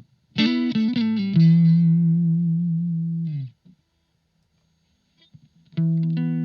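Electric guitar played through a Blackstar ID Core Stereo 40 amplifier with an effect on. A quick run of notes leads into one held note with vibrato that stops after a few seconds. After about two seconds of silence, playing starts again near the end.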